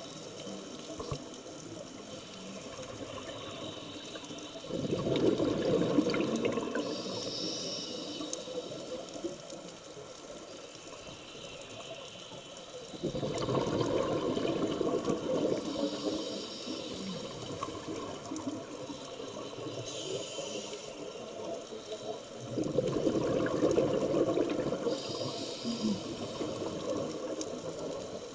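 Scuba diver's breathing heard through an underwater camera housing: three bursts of exhaled bubbles rushing from the regulator, about nine seconds apart, with quieter stretches between.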